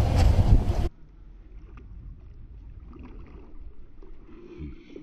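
A loud rushing noise with a faint hum in it cuts off abruptly about a second in. After that, water sloshes quietly around a small boat, with faint splashes from a hooked channel catfish swirling at the surface beside it.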